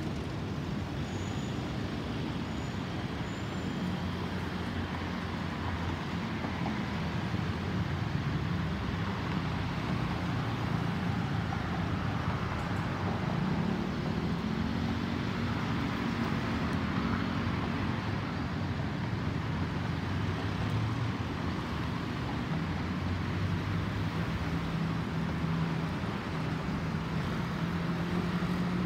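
Jet engines of an Airbus A320neo (CFM LEAP-1A turbofans) climbing out overhead: a steady low rumble with a few drifting low tones, swelling a little towards the middle.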